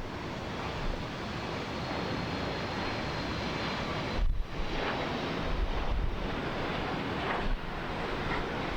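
Steady rushing roar of jet airliner engines, mixed with wind on the microphone, dipping briefly about four seconds in.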